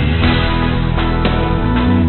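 Background music with electric guitar and a steady beat.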